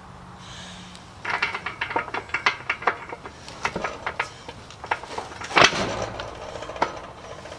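Steel tractor wheel hardware clinking and clanking in quick, irregular runs of sharp metallic clicks, with one louder clank about five and a half seconds in.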